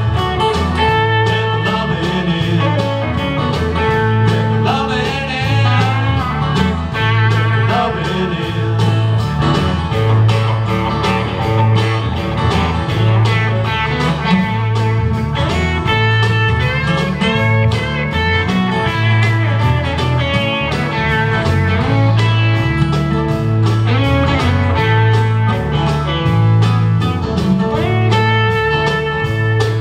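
Live band playing a country-blues song on acoustic and electric guitars, electric bass and drum kit, with a lead guitar line bending its notes over a steady, pulsing bass line.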